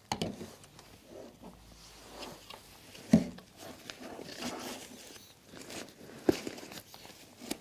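Rustling of a nylon camera backpack and a DSLR with lens being pushed into its padded side compartment, with three sharp knocks as the camera bumps the pack and table, the loudest about three seconds in.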